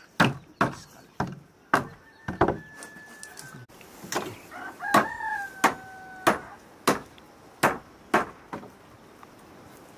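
About a dozen sharp hammer blows knocking nails into old wooden planks, stopping about nine seconds in. A rooster crows twice in the middle.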